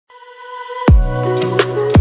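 Electronic intro music. A sustained synth chord fades in, then a beat starts just under a second in, with deep thumps and a sharp hit in between.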